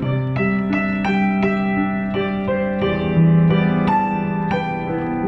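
Kawai grand piano played solo: a slow, gentle melody of single notes struck about three times a second over sustained lower notes.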